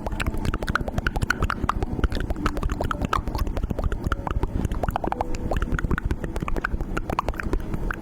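Slime being squished and worked by hand, a dense run of irregular wet clicks and small pops.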